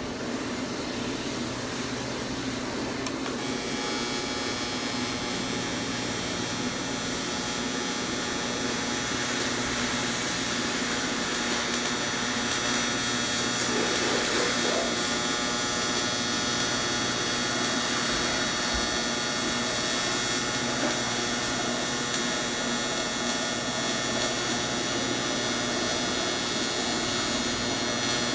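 TIG welding arc on cast aluminum, striking about three and a half seconds in and then buzzing steadily with a hiss.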